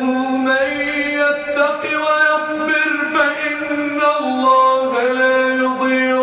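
A man reciting the Quran in a melodic chanted style, holding long drawn-out notes that step to a new pitch every second or so.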